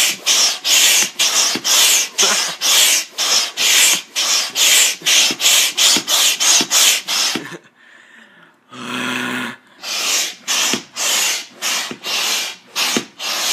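Manual air pump being worked hard to inflate an air mattress: quick, even pump strokes, about three a second, each a rush of air through the hose. The strokes pause for about a second roughly two-thirds of the way through, with a short low tone, then resume.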